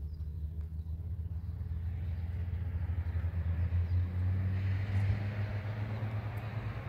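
An engine running with a low steady hum that grows louder and slightly higher about halfway through.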